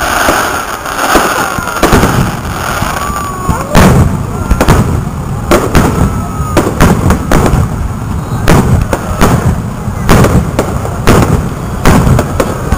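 Aerial firework shells bursting overhead: a few bangs at first, then from about four seconds in a rapid, near-continuous string of booms.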